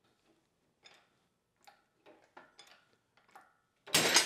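A few faint ticks and clicks, then a loud sharp crack near the end as a glued wooden miter joint, reinforced with a spline whose grain runs parallel to the joint, breaks under the test load.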